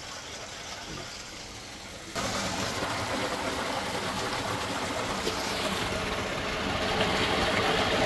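Pumped water gushing steadily into a wooden tank, a dense rushing splash that comes in suddenly about two seconds in, after a softer steady hiss.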